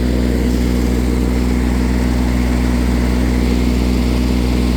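John Deere riding lawn mower's gasoline engine running at a steady speed, with an even, unchanging drone.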